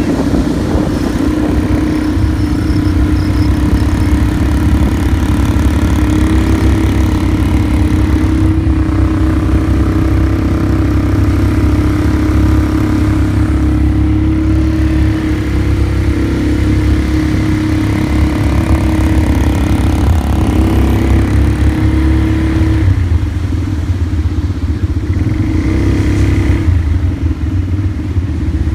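ATV engine running under way, with a heavy low rumble and an engine note that holds mostly steady, easing off for a few seconds near the end.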